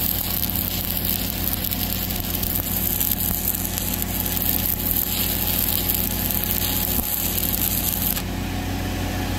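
Stick-welding arc of a 1/8-inch ESAB 7018 electrode at about 124 amps, crackling steadily as the bead is run. An engine-driven welder hums underneath.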